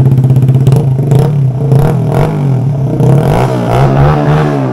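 Kawasaki Z125 Pro's 125 cc single-cylinder engine running through a newly fitted aftermarket exhaust, idling and then blipped on the throttle several times, its note rising and falling.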